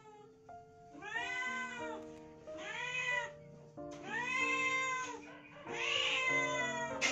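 A domestic cat meowing over and over, about five rising-and-falling meows roughly a second and a half apart, over background music with held notes.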